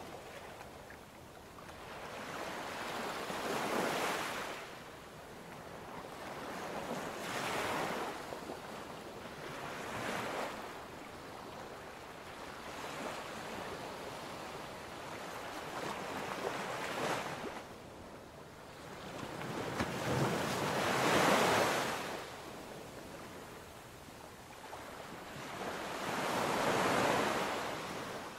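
Ocean waves washing in, each swell rising and falling away every few seconds, the strongest a little past the middle.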